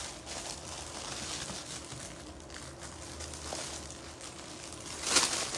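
Faint rustling and handling of folded wool shawls being opened out, over a low steady hum, with a louder brief rustle about five seconds in.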